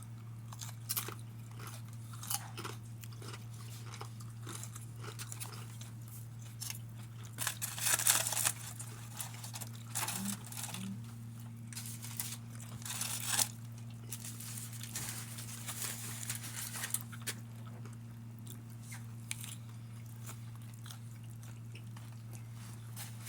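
A person chewing and crunching a mouthful of fresh hot pepper, with the loudest crunches around eight and thirteen seconds in, over a steady low hum.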